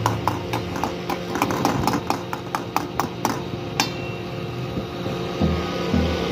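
Steel ladle clinking against an iron karahi in quick repeated taps, about four a second, as masala is stirred, ending with one sharper knock before it stops. A low rhythmic thumping starts near the end.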